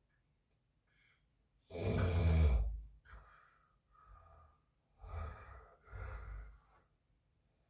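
A sleeping man snoring: one loud snore about two seconds in, then quieter breaths, and two more snores near the end.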